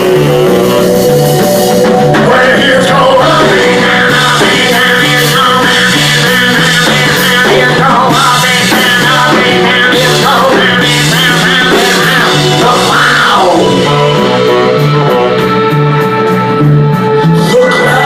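Rock music with a steady, repeating bass line and guitar, with slides in pitch over it.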